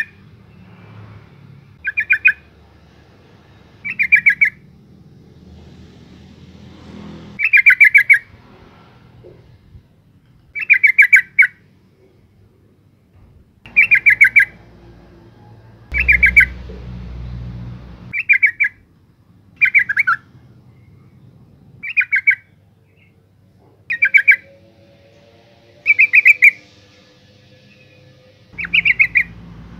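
Female yellow-vented bulbul calling: about a dozen short, loud bursts of rapid chattering notes, each burst under a second, repeated every two seconds or so.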